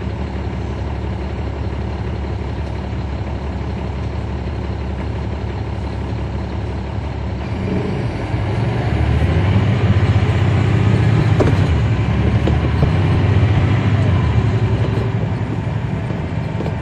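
Caterpillar C13 ACERT diesel engine of a 2009 NABI 40-SFW transit bus, heard from the rear seat near the engine. It runs steadily at low speed, then about halfway through it opens up and gets louder for several seconds as the bus accelerates, easing off again near the end, with a single knock in the middle.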